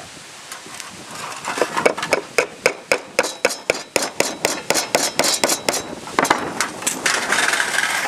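A hammer driving a nail into a pine board: a run of about twenty quick, sharp strikes, about four a second, starting about a second and a half in and stopping about six seconds in.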